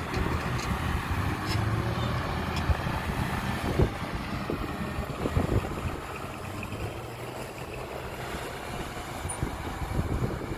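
Diesel engine of heavy earthmoving machinery running steadily, with scattered knocks and clanks.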